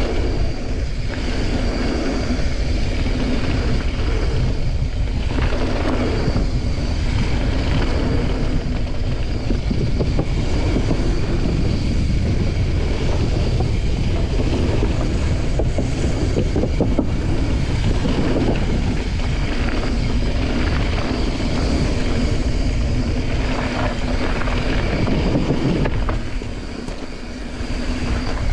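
Wind buffeting the camera microphone together with the tyre noise and rattle of a mountain bike riding fast down a dirt and gravel trail, dipping briefly in level near the end.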